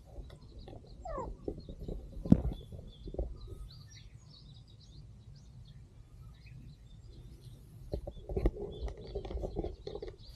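Small birds chirping now and then, with close rustling and handling noises; one sharp knock a little over two seconds in, and a busier stretch of rustling near the end.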